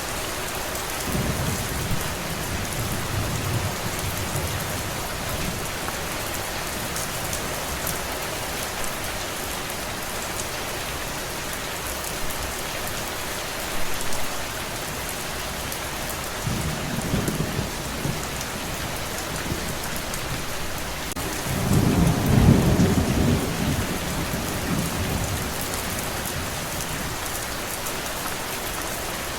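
Steady heavy rain falling, with rolls of distant thunder: low rumbles near the start and again past the middle, the loudest about three-quarters of the way through.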